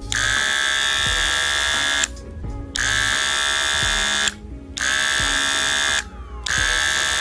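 Cordless Wahl hair clipper's motor switched on and off four times, buzzing steadily at a high pitch for one to two seconds each run and stopping abruptly in between, the last run still going at the end. The power switch is being tested, and it is not as responsive as wanted.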